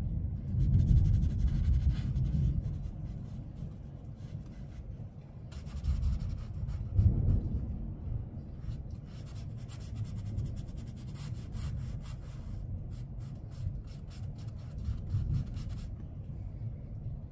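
Watercolor brush scrubbing and dabbing wet paint onto paper, a quick run of short scratchy strokes. A low rumble runs underneath, swelling about a second in and again around seven seconds.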